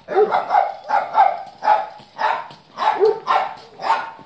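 A dog barking repeatedly, about two barks a second.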